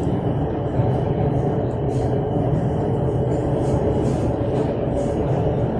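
Electric metro train running between stations, heard from inside the carriage as a steady rumble of wheels and running gear.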